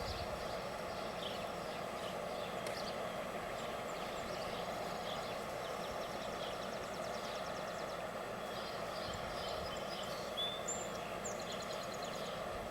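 Steady outdoor background hum with faint, short high chirps and trills scattered over it.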